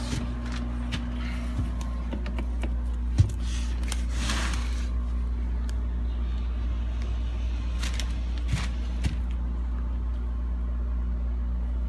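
Steady low hum with a few light handling clicks and one sharp knock about three seconds in.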